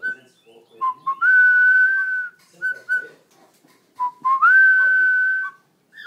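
Troupial whistling loudly: a couple of short lower notes rise into a long, steady high note about a second long, and the phrase comes twice with short notes between.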